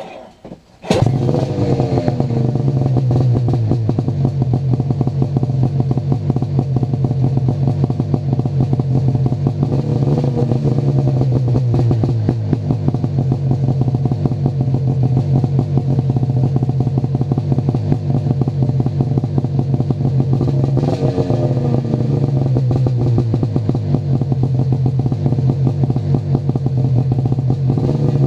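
Ski-Doo MXZ 670 two-stroke engine running through an MBRP performance exhaust can. It catches about a second in and settles to a steady idle. The revs rise briefly twice, about 10 and 21 seconds in.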